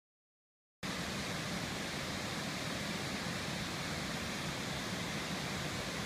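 After about a second of dead silence, the steady rush of a waterfall spilling over rock ledges starts abruptly and runs on evenly.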